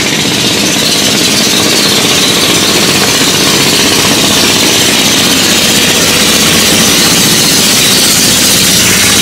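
Small boat engine running steadily at a constant speed, loud and unchanging.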